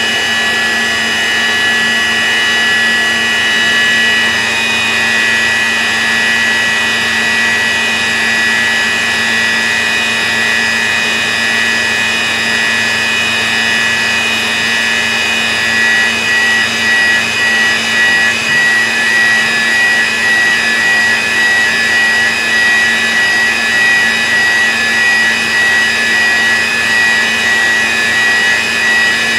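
CNC milling machine cutting aluminium with a 14 mm end mill: a steady high whine of spindle and cut. From about halfway the loudness pulses regularly, a little over once a second.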